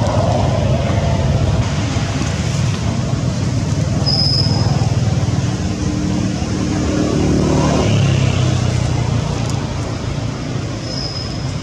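Steady rumble of road traffic, with a vehicle engine passing about six to eight seconds in. Two short high peeps sound, about four seconds in and near the end.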